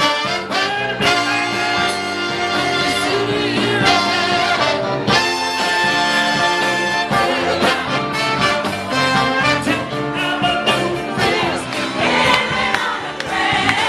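Live party band playing with a horn section, trumpet and trombone, and a singer.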